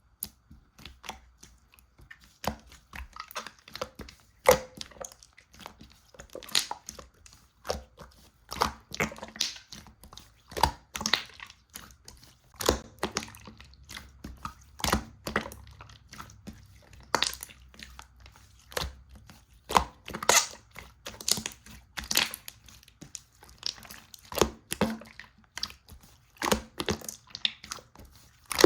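Slime being kneaded and pressed by hand, giving a stream of irregular sticky clicks and crackles, several a second, with louder pops now and then.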